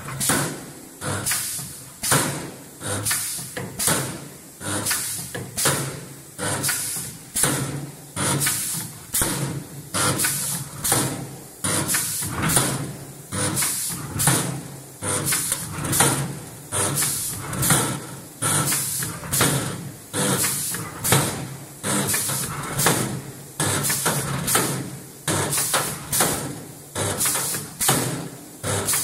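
Automatic gantry spot welding machine welding a steel box, firing spot welds in a steady rhythm of about three every two seconds, each one a sharp, short burst of noise.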